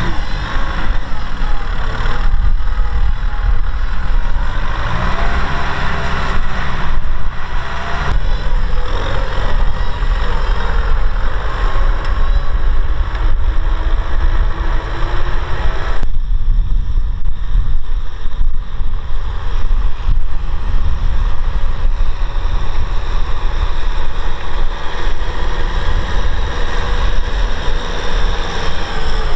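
Kubota M6040SU tractor's diesel engine running under load as it pulls a disc plough through dry, cloddy field soil. The sound changes abruptly in tone about halfway through.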